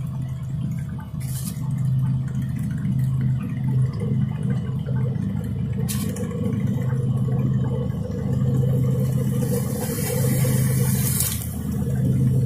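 Sea water washing and sloshing among breakwater rocks over a steady low hum, with two sharp clicks, about one and a half and six seconds in.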